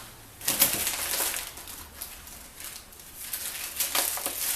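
Packaging being handled and rustled: several short bursts of rustling as parts are taken out of the box.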